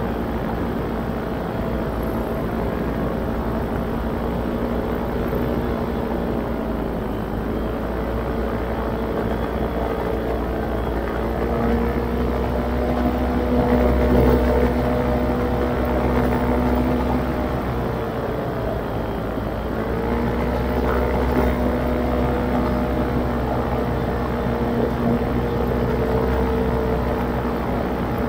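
Electric motors and propellers of a radio-controlled camera aircraft running, a steady hum whose pitch climbs about eleven seconds in, dips briefly around eighteen seconds, then rises again. Wind rumbles on the microphone underneath.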